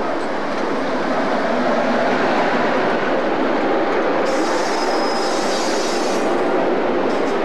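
Passenger train hauled by a Class 90 electric locomotive rolling past close by, with a steady rumble of wheels on rail. A high hiss with a faint squeal rises about halfway through and lasts about two seconds.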